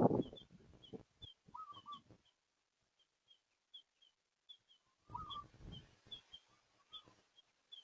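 Birds calling: a steady run of short high chirps about twice a second, with louder, lower calls at the start, around a second and a half in, and again about five seconds in.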